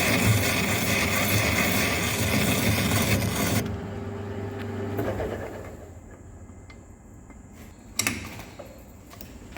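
A metalworking power tool cutting steel with a steady hiss that stops abruptly about three and a half seconds in, leaving a low machine hum. A single sharp knock follows near the end.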